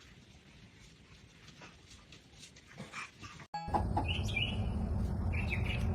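Faint animal sounds at first. After a sudden cut about three and a half seconds in, a bird chirps in short, high calls over a steady low hum.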